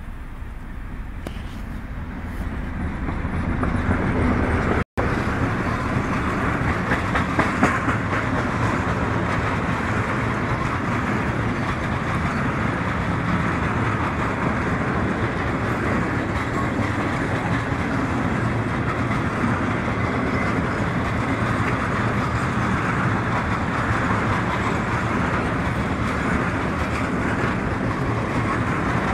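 Heavy freight train passing close by: the ST43 electric locomotive approaches, growing louder until it passes about four seconds in, then a long string of open freight wagons rolls by with a steady rumble of wheels on rail.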